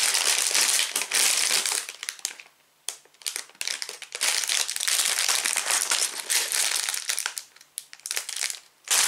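Clear plastic Lego parts bags crinkling and rustling as they are handled, in spells with a short pause about two and a half seconds in.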